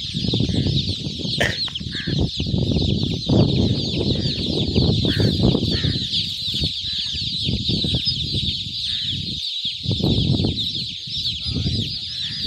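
A huge flock of newly hatched chicken chicks peeping in a dense, unbroken chorus of high, short chirps. Underneath runs an irregular low rumbling noise on the microphone.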